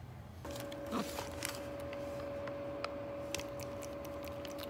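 Okaysou air purifier's fan starting up about half a second in, then running steadily with an even whoosh and a low two-note hum. A few light clicks sound over it.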